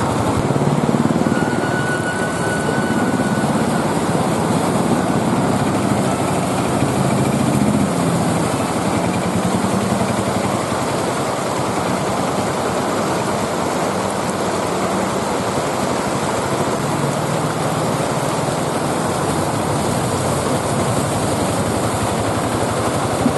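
Auto-rickshaw engines running as three-wheelers drive through shallow floodwater, over a steady rush and splash of churned water. The engine hum swells and fades several times as vehicles pass.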